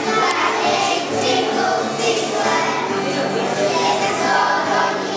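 A group of first-grade children singing together in unison, accompanied by an acoustic guitar.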